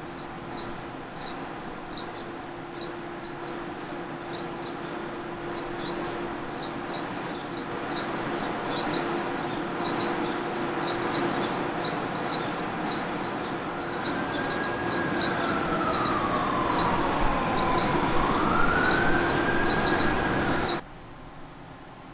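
City street ambience: small birds chirping over a steady hum, while an emergency vehicle siren wails in slow rising and falling sweeps, growing louder in the second half. Everything cuts off abruptly near the end.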